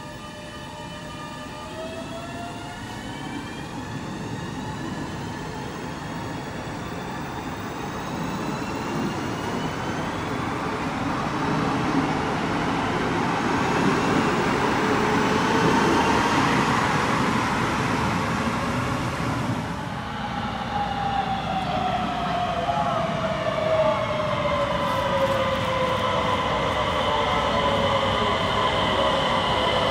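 A Skånetrafiken X61 electric multiple unit pulls out of an underground station, its motor whine rising in pitch as it speeds away. About twenty seconds in, a DSB ET Øresundståg electric train arrives, its whine falling in pitch as it slows.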